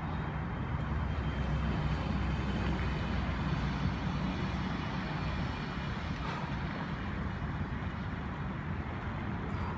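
Steady rumble of road traffic, swelling a little louder a second or so in and easing off after a few seconds.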